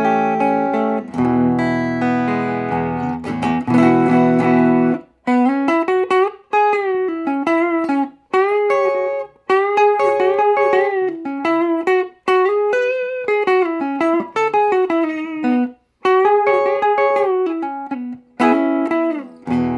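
1957 Fender Telecaster electric guitar played through a Silvertone amp: strummed chords for the first few seconds, then single-note lines with string bends and vibrato, and chords again near the end.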